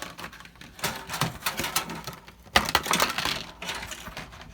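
Irregular small clicks and knocks of a RAM stick being handled and pressed into a motherboard memory slot, its plastic retention latches clacking, with the sharpest knock about two and a half seconds in.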